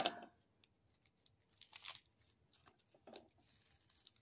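Faint crinkling and crackling of a small plastic bag of diamond-painting drills as a corner is opened off it: a few short, separate crackles.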